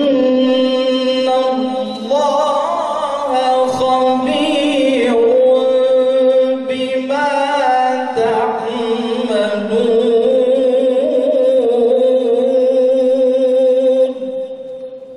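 A male qari reciting the Qur'an in the melodic tilawat style: long held phrases with wavering, ornamented pitch, broken twice briefly, stopping about a second before the end.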